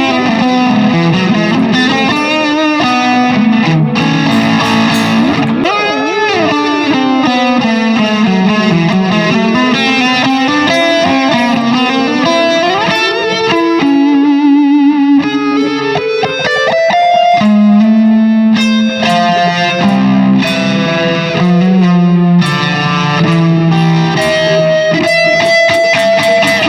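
Electric guitar played through a Keeley Halo Core delay pedal, its notes trailing into overlapping echoes. There are sweeping, wavering pitch bends in the middle and held notes toward the end.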